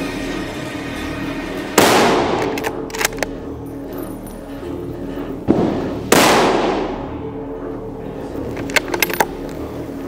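Two rifle shots about four seconds apart, each followed by a long echo dying away, with a smaller report shortly before the second shot. Background music plays underneath.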